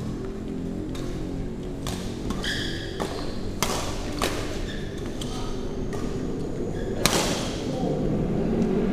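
Badminton rackets striking a shuttlecock in a rally: a string of sharp, separate hits about a second apart, the loudest about seven seconds in.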